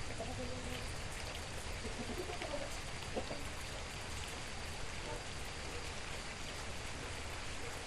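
Steady rain falling, an even hiss of drops, with a few faint chicken clucks in the first three seconds.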